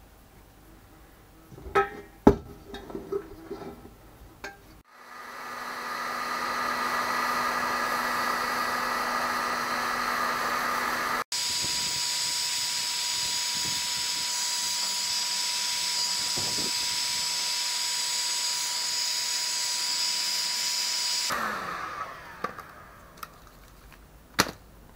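Electric heat gun running steadily for about sixteen seconds, a blowing fan with a high whine that changes pitch abruptly once midway, then switching off; it is melting wax residue off a wire-mesh wooden frame. Before it, light scraping and clinks of a metal scraper against a pot; after it, a few light knocks as the frame is handled.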